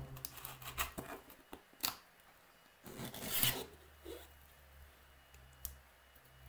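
Cardboard box being opened by hand: a few light taps and clicks, then a longer scraping rub about three seconds in as the outer sleeve slides off the inner box, and a couple of soft knocks after.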